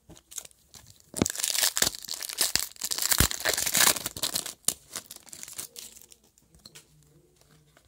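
Foil wrapper of a hockey card pack torn open and crinkled by hand: a burst of tearing and crackling from about one to four seconds in, then softer clicks as the cards are handled.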